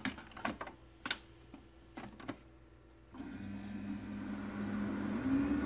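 Keurig single-serve coffee maker: a few sharp clicks as it is handled, then its pump starts brewing with a steady hum about three seconds in, the pitch lifting and dropping once near the end.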